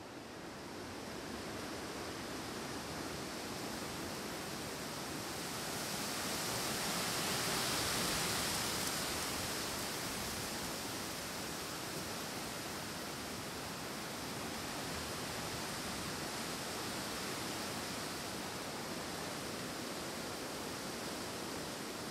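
Wind rushing through forest trees in a steady hiss. A gust builds and peaks about a third of the way in, then eases back to a steady rush.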